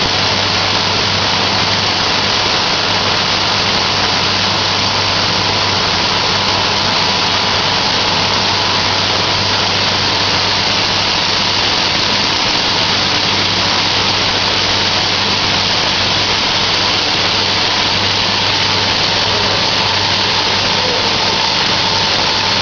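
Laser cutting machine running steadily as it cuts an MDF pattern: a constant rushing noise over a low hum, with no change throughout.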